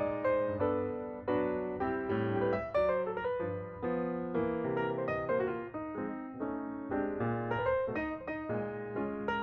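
Background piano music: a melody of separate struck notes over a lower bass line.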